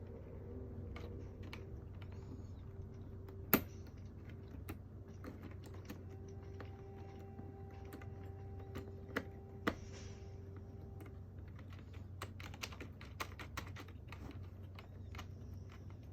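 Irregular light clicking and tapping like typing over a steady low hum. The clicks start sparse, with a sharp louder knock about three and a half seconds in and two more near the middle, then come in quicker clusters in the second half.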